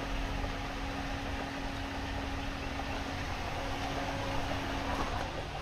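A steady mechanical hum with a low droning tone over a noisy hiss, unchanging throughout.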